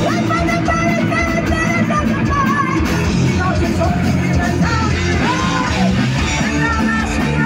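Heavy metal band playing live: distorted electric guitars, bass and drums under a high, shouted lead vocal, recorded from the audience.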